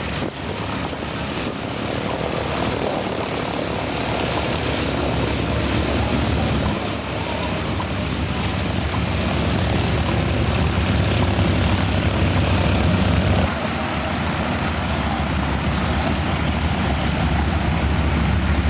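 Propeller aircraft engine running steadily, growing slowly louder.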